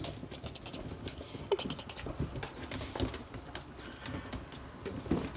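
A puppy mouthing and chewing its toys on a fleece blanket: scattered clicks, rustling and scuffling, with a few short squeaky chirps.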